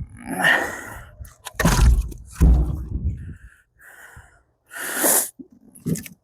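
Rounds of ash firewood being thrown into the firebox of an outdoor wood boiler: a string of knocks and scrapes of wood on wood and steel, with two heavy thuds about two seconds in.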